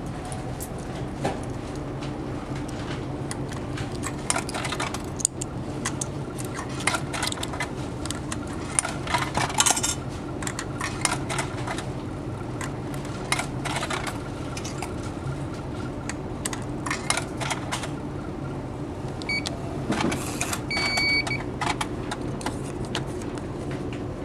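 Coins clinking one after another as they are fed into a Japanese meal-ticket vending machine, over the steady low drone of the ferry's engines. Near the end the machine gives short electronic beeps and a brief whirr as it prints and drops the tickets.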